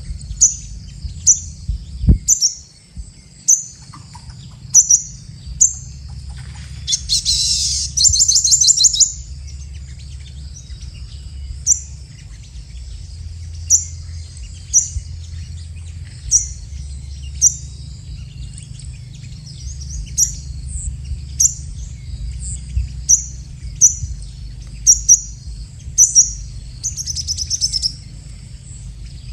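Sunbird calling: sharp, high, short chirps repeated two or three times a second at first, then about once a second, broken twice by a fast twittering trill, about seven seconds in and near the end.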